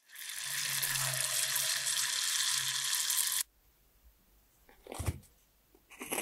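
Yoghurt dough frying in hot vegetable oil: a dense, steady sizzle and bubbling that cuts off abruptly about three and a half seconds in. A short soft thump follows about five seconds in.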